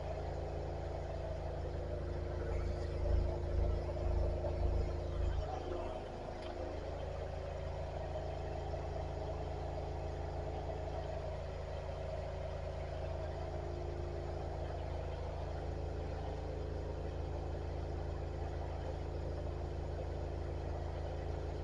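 High-pressure drain jetter's engine and pump running steadily while the nozzle works through a grease blockage in a sewer line, with a few low bumps a few seconds in.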